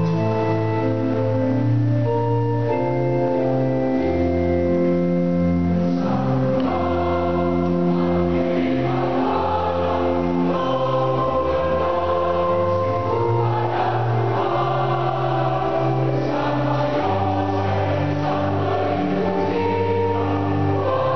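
Mixed choir of men and women singing a piece in several parts, with long held chords.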